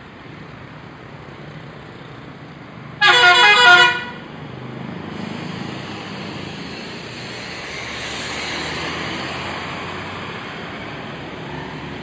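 A bus telolet horn, a multi-tone musical horn, sounds one short burst of about a second about three seconds in, stepping through several notes. After that comes steady road noise, which swells as the coach drives close past.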